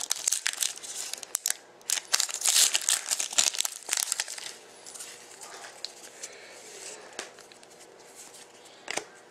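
Foil wrapper of a Panini Contenders hockey card pack being torn open and crinkled, loudest in the first four seconds or so. After that comes quieter handling of the cards, with one short tap near the end.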